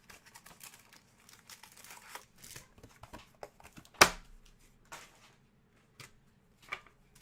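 Trading-card pack wrappers crinkling and tearing as packs are opened, with scattered small crackles and one sharp click about four seconds in.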